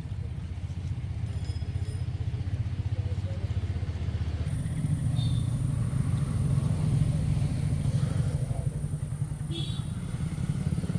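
An engine running steadily with a low pulsing rumble; its sound shifts about four and a half seconds in.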